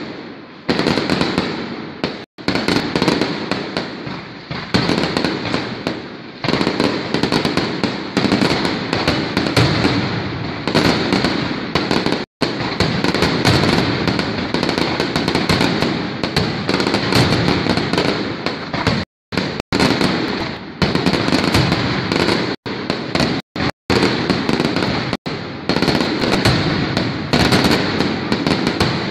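Fireworks going off at close range in a dense, continuous barrage of bangs and crackling, cut off for an instant several times.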